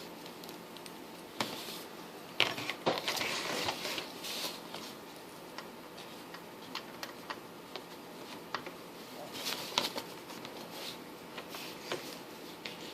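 Hands plugging in cables and connectors: scattered small clicks and knocks with short bouts of light rustling, busiest in the first few seconds and again past the middle.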